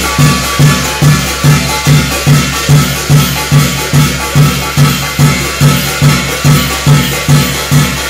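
Korean shamanic ritual music: an even, loud drum beat of about two strokes a second, with a steady ringing tone above it.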